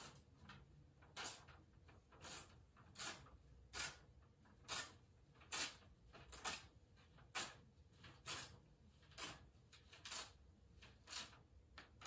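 A sheet of paper being torn by hand, piece by piece: short rips about once a second, a dozen or so in a row.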